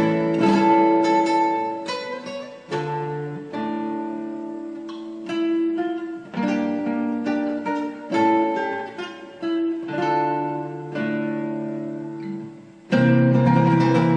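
Acoustic guitar music: chords strummed and notes picked, each one ringing and dying away, getting louder about 13 seconds in.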